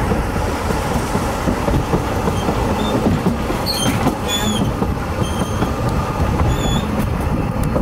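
Narrow-gauge railway carriages rolling past close by on curved track: a steady rumble of wheels on rails, with short high wheel squeals now and then.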